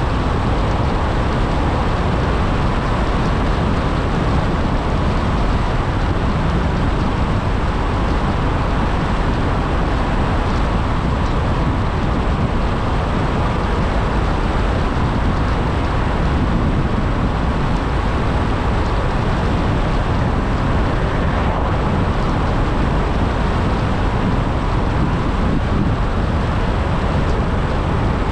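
Steady road and wind noise of a car driving at speed, an even rumble and rush with no change in pace.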